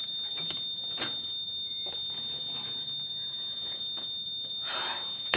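Kitchen handling sounds as a pan is picked up with oven gloves: a sharp knock about a second in and a louder rustling clatter near the end, over a steady high-pitched whine.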